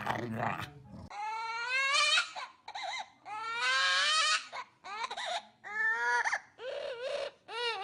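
A pet crying in a string of about seven high, pitched calls, some long and rising, some short. The end of another sound cuts off about a second in.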